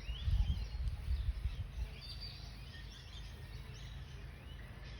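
Wild birds chirping and calling in the background, with low rumbling on the microphone that is loudest in the first two seconds.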